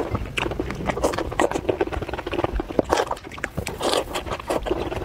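Close-up mouth sounds of eating raw shrimp in sauce: wet chewing, sucking and lip-smacking in a dense run of irregular wet clicks.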